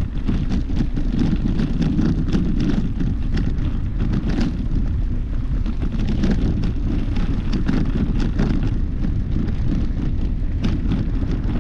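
Wind rumbling on the microphone of a moving bicycle, with frequent small clicks and crunches from the tyres rolling over a dirt path.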